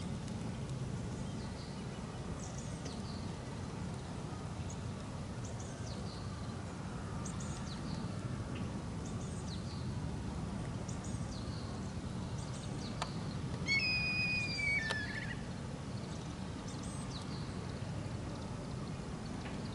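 Outdoor ambience: a low steady wind rumble with scattered faint bird chirps, and one louder drawn-out bird call, about a second and a half long, that drops in pitch at its end about fourteen seconds in.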